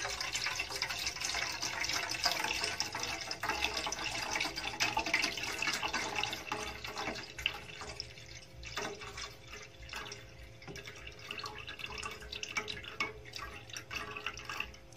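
Milk pouring from a carton into a metal saucepan, splashing into the milk already in the pan. About halfway through the pour gets quieter and thins to a trickle with scattered drips.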